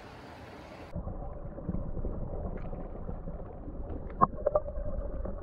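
Creek water rushing steadily, then about a second in the sound turns muffled and low as it is heard from underwater: a dull churn of moving water, with a few short knocks around four seconds in.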